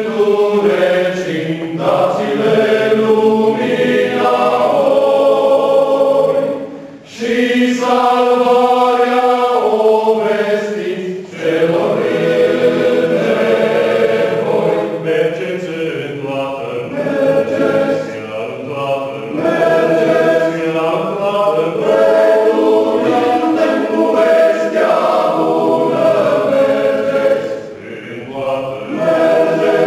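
Men's choir singing a Romanian gospel hymn in several parts, the phrases broken by short breaths about seven and eleven seconds in and again near the end.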